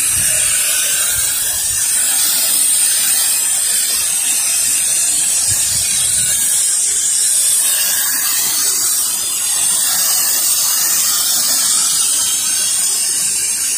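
Softwash spray gun and nozzle putting out a steady low-pressure spray of water onto vinyl siding and a window: an even, unbroken hiss, strongest in the treble.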